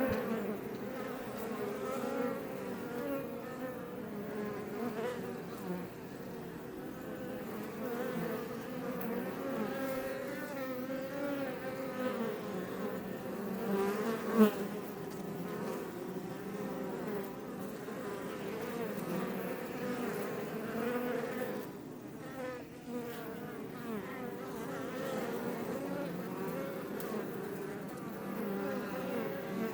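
Swarm of Iberian honey bees buzzing around their hive: a dense hum of many overlapping, wavering wingbeat tones. About halfway through one buzz is briefly much louder than the rest.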